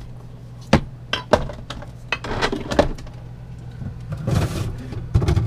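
Glass bottles and jars clinking and knocking against each other and the shelves as they are moved around inside a refrigerator, a few separate knocks over a steady low hum.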